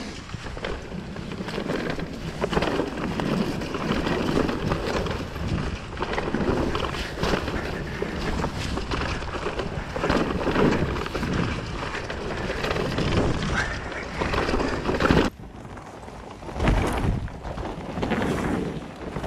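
Riding noise from a mountain bike going down a wet, muddy trail: wind buffeting the camera microphone over the rumble and rattle of the bike. The level drops suddenly about fifteen seconds in, then rises again in swells.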